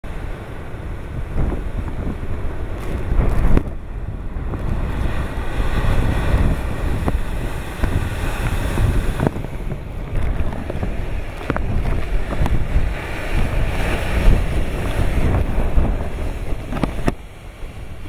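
Heavy storm surf from an approaching typhoon crashing and churning against the base of rocky sea cliffs, in a continuous rumble that swells and eases in surges, with strong wind buffeting the microphone.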